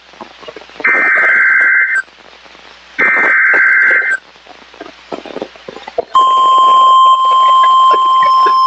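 Emergency Alert System SAME header data bursts, a harsh buzzy warble heard twice about two seconds apart, then about six seconds in a steady single-pitch NOAA Weather Radio 1050 Hz alert tone starts and holds. Together they mark the start of a broadcast warning, here a flash flood warning.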